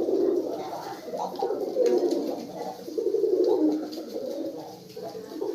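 Domestic pigeons, Giribaz breed, cooing in repeated low, rolling phrases one after another.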